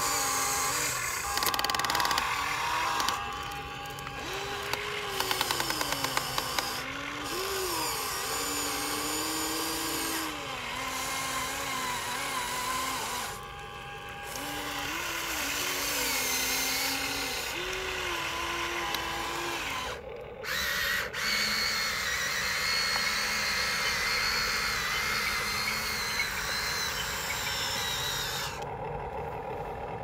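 Small electric motors of remote-control toy vehicles whining, the pitch rising and falling over and over as they speed up and slow down. The sound breaks off and resumes several times, with a short run of ticks about five seconds in and a steadier, higher whine in the last third.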